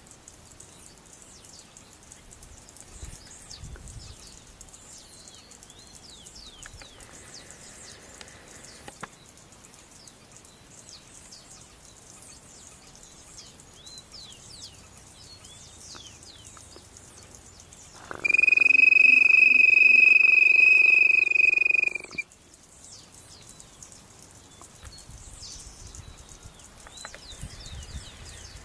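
A hand-held quail call (pio) blown in one long, steady, high whistle lasting about four seconds, about two-thirds of the way in, to call a codorna piriri quail. Faint chirping of small birds and insects goes on throughout.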